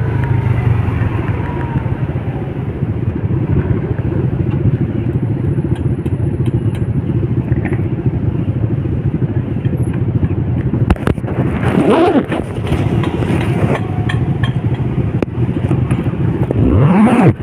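Motor vehicle engines running in slow, jammed traffic, a steady rumble. An engine revs up briefly about twelve seconds in and again near the end.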